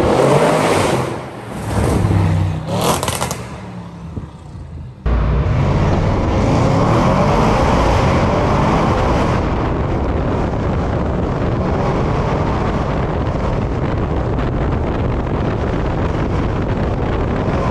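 Audi RS6's twin-turbo V8 exhaust as the car drives past, swelling loudly twice. Then, heard from a camera mounted on its bonnet, a steady drone of engine and road noise as it cruises through a tunnel.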